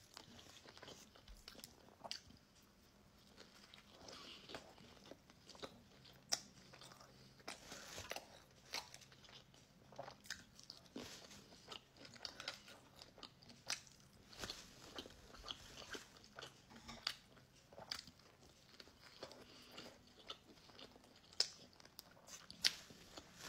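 Faint chewing and crunching of a toasted sandwich, irregular sharp crunches of crusty bread mixed with wet mouth sounds.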